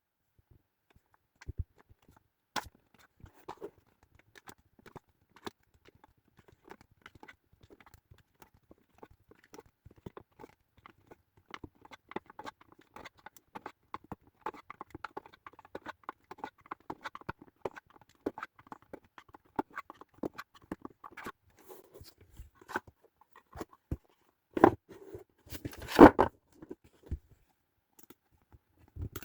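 A boxed card game being handled and unwrapped: scattered small clicks and taps, then about ten seconds of dense fine crinkling and scratching as the packaging comes off, and a couple of louder knocks near the end.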